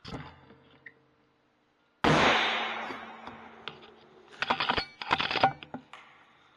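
An air rifle shot: one sharp, loud crack about two seconds in that rings on briefly in the small hut. It is followed about two and a half and three seconds in by two short bursts of rattling clatter.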